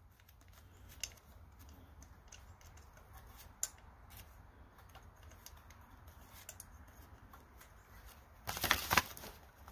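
Faint handling sounds: paper rustling and small clicks as fingers set a paper spacer between an ignition coil and the flywheel. Near the end comes a louder burst of rustling and scraping.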